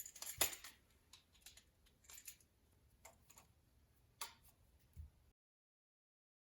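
Faint, irregular clicks and small knocks from hands working on a new electrical wall outlet and its wiring. About five seconds in the sound cuts off to dead silence.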